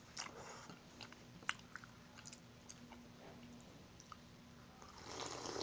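A person eating shrimp ramen: soft chewing and small wet mouth clicks on the noodles, then a slurp of broth from the container, under a second long, near the end.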